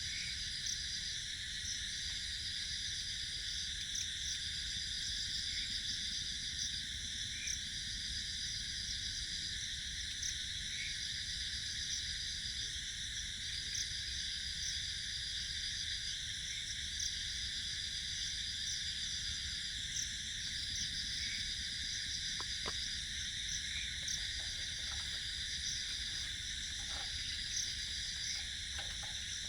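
Insect chorus of crickets: a dense, steady shrill hum, with one insect trilling in repeated bursts of about a second and a half separated by short gaps. A few faint knocks come in the second half.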